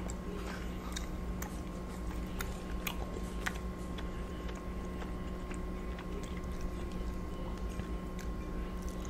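Close-miked chewing of lobster ravioli, with wet mouth clicks that come thickest in the first few seconds and thin out after. A steady low hum runs underneath.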